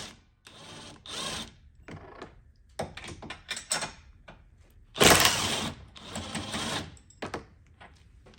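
Socket ratchet clicking in several short runs as 18 mm roll-cage bolts are backed out, the loudest run about five seconds in.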